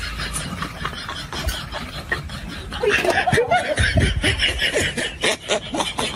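A person snickering and chuckling, in short breathy bursts that get louder from about three seconds in.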